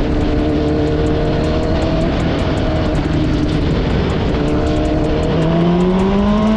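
Motorcycle engine running at a steady pitch while being ridden, over a steady rush of wind noise; about five seconds in the revs start climbing as the bike accelerates.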